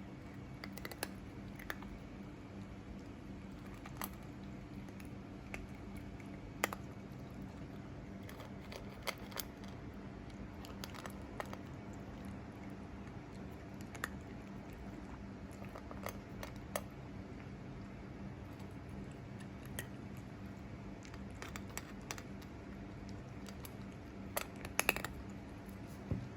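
Cat eating: irregular sharp clicks and crunches of chewing, a few seconds apart, with a quick cluster near the end. A steady low hum runs underneath.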